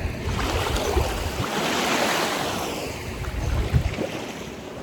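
Ocean surf: a wave washes in, its hiss building to a peak about two seconds in and then fading, with wind rumbling on the microphone.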